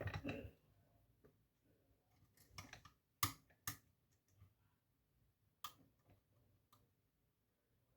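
Faint, scattered metallic clicks and light scrapes of a lock pick working the pins of a pin-tumbler lock under tension, with a few sharper clicks about three to four seconds in and again near six seconds.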